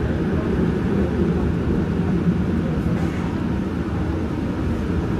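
Yongin EverLine light-rail car (a Bombardier ART driven by a linear induction motor) running along its track, heard from inside the car as a steady low rumble of wheels and running gear.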